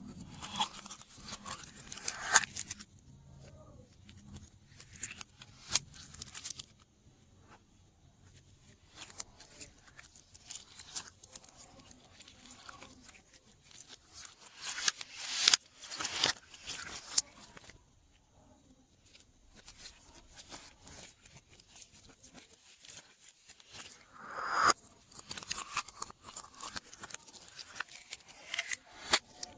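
Hands mixing and squishing glossy slime, giving irregular sticky clicks, pops and crackles that come in bursts.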